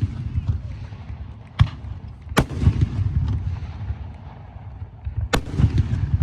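Daytime fireworks going off: three sharp bangs, the first two close together about a second and a half in and the third near the end, each followed by a rolling rumble of echo.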